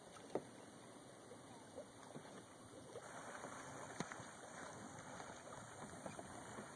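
Water lapping and trickling around a kayak as it is paddled. Two sharp clicks stand out, one just after the start and one about four seconds in.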